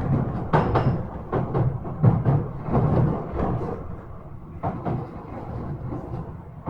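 Running noise inside a Yokohama Minatomirai Railway Y000 series train car: a low rumble broken by irregular thumps and knocks.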